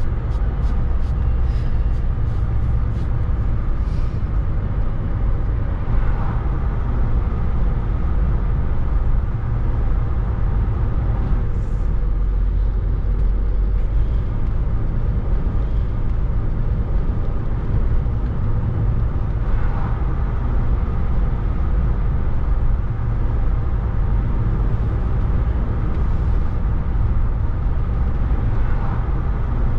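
Steady rumble of a car's engine and tyres on the road, heard from inside the moving car's cabin. A quick run of light ticks sounds in the first few seconds.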